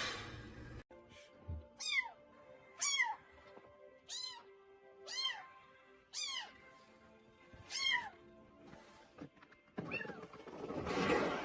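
A cat meowing repeatedly: six high-pitched meows about a second apart, each rising and then falling in pitch, over faint background music. A louder burst of noise comes near the end.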